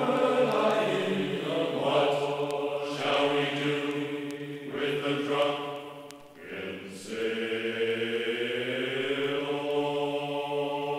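Background music: a singing voice in a chant-like style, holding long notes with short breaks between phrases.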